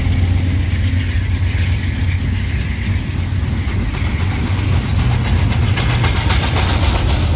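Train going by close at hand: a steady low diesel engine rumble mixed with wheel and rail noise, with a denser clatter in the second half.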